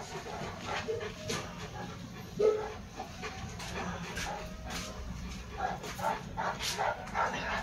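St. Bernard dogs barking and whining in a series of short calls, with one louder call about two and a half seconds in.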